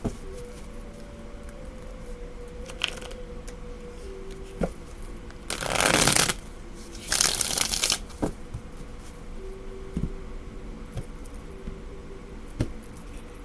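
A tarot deck being shuffled by hand: two loud riffling rushes of cards, about halfway through and again a second later, with light taps and clicks of cards between.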